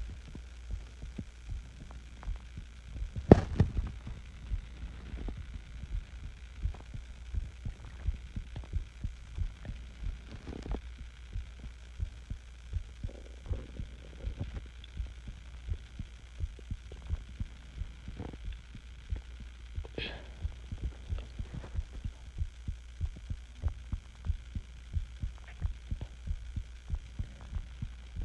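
Human heartbeat recorded close-up, a regular run of short low lub-dub thumps over a steady low hum. A single loud knock comes about three seconds in.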